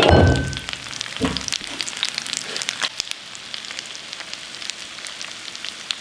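Hot oil sizzling and crackling in a frying pan from pan-frying shemaya fish, with dense fine pops. A couple of louder short sounds come in the first second and a half.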